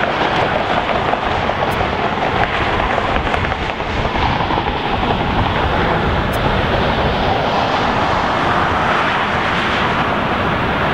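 Jet airliner engines running, a steady loud rushing noise with a brief dip a little before the middle.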